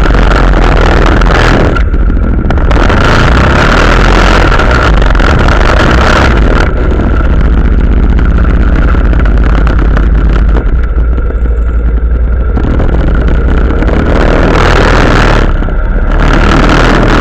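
Quad bike (ATV) engine running hard while riding over sand dunes, heard from a camera mounted on the quad. A loud, steady din with a constant high whine, the upper hiss thinning out for a few seconds midway and again near the end.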